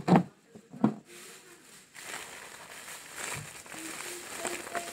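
Clear plastic wrap and clear tape being handled to tape up a wrapped snack tray: a steady crinkly rustle that begins about two seconds in, after a couple of short vocal sounds.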